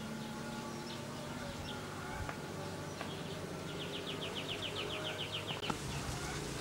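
Quiet village ambience with an insect's rapid pulsed trill, about seven pulses a second, for roughly two seconds in the middle, over a low steady background and a few faint bird chirps; a single click comes near the end.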